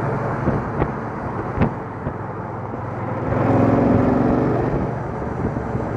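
Motorcycle engine running while riding along a street, under a steady rush of road and wind noise. Two sharp clicks come about a second in, and the engine grows louder for a second or two about three and a half seconds in.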